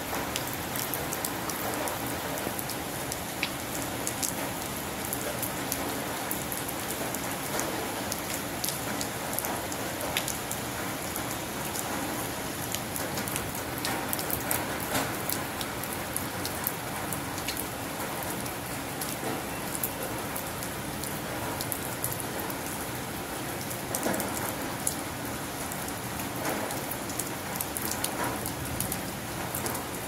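Rain falling on standing water: a steady, dense patter of drops, with many small individual splashes ticking through it.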